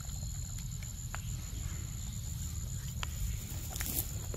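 A young macaque eating a mango: a few scattered soft clicks of biting and chewing, and a short rustle just before the end. A steady high-pitched hum and a low rumble run underneath.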